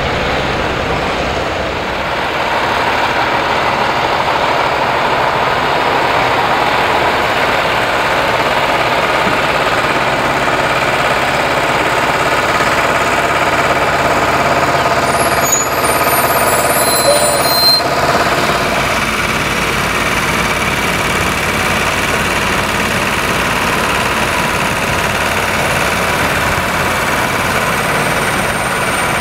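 Heavy-haulage truck diesel engines running steadily with a dense, even mechanical sound, and a brief disturbance about halfway through.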